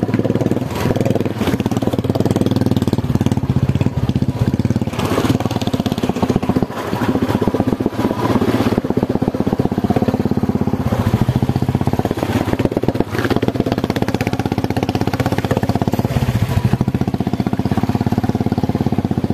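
Motorcycle engine running steadily as the bike is ridden slowly through floodwater.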